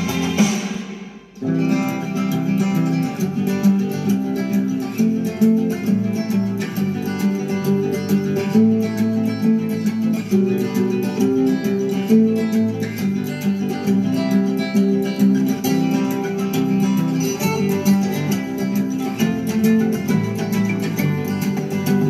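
Background music with plucked acoustic guitar, briefly dropping out about a second in and then carrying on.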